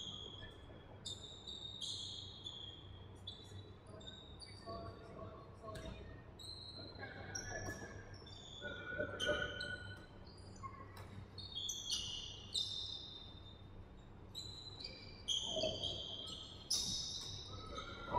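Basketball game in a large, echoing gym: sneakers squeak again and again on the hardwood court, with a ball bouncing now and then and faint players' voices in the distance.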